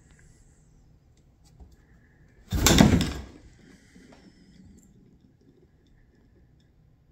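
A cardboard box tipping over and dropping onto a wooden floor: one sudden loud clatter about two and a half seconds in that dies away within a second.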